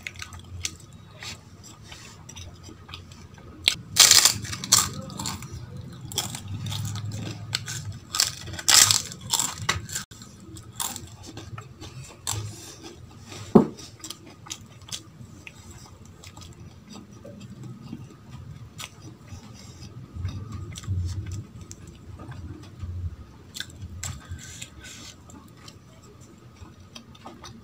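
Fingers scraping and tapping on a stainless steel plate while mixing dal and rice by hand, with squishing of the wet food and a few sharp clinks against the metal, one of them briefly ringing. Soft chewing in between.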